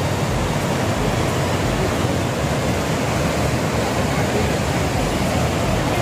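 Pykara Falls: river water rushing over rocky rapids and cascades in a steady, unbroken rush of white water.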